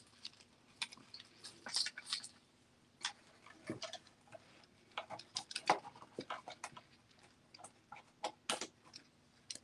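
Faint, irregular light clicks and taps of a metal chain necklace with beads and a heart pendant being handled and hung on a jewellery display bust.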